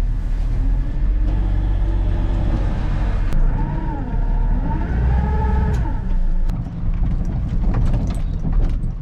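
Boat's outboard motor running under way, its pitch swinging up and down a few times in the middle, with wind buffeting the microphone.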